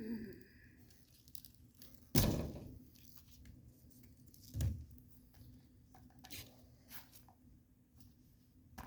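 An old, crumbly rubber vent-window seal being torn and pulled out of its groove in the metal frame: scattered tearing and scraping noises. A sharp knock comes about two seconds in, and a duller thump a couple of seconds later.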